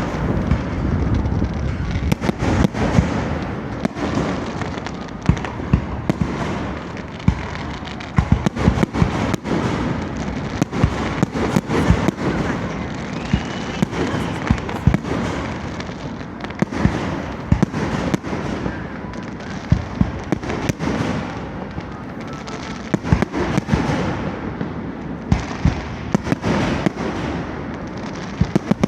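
Aerial fireworks display: a steady stream of sharp bangs and crackles, several a second, over a continuous rumble of echoing booms.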